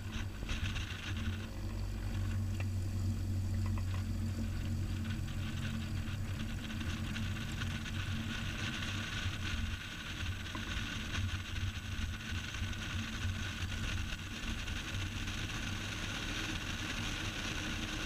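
Cessna 172's four-cylinder piston engine and propeller running at takeoff power during the takeoff roll, heard from inside the cabin as a steady low hum. The noise fills in a little about a second and a half in.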